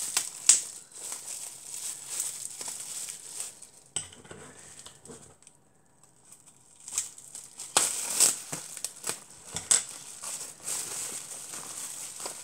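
Clear plastic wrapping crinkled and pulled off a small die-cast model car by hand, in irregular bursts of crackling with a short lull about halfway through.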